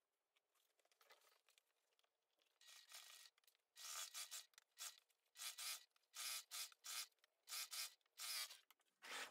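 Fabric rustling and rubbing as hands shift and smooth layers of canvas and lining with a zip on the sewing machine bed, in a series of short bursts starting about two and a half seconds in.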